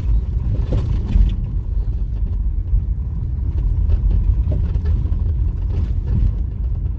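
A vehicle moving along an unpaved, not-yet-constructed road: a steady low rumble of engine and road noise.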